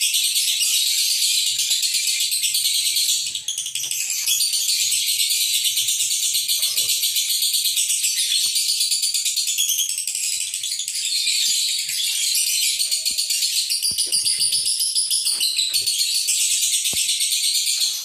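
Lovebird singing a long, unbroken high-pitched chattering trill, very fast and rattling, with only a brief break about three seconds in.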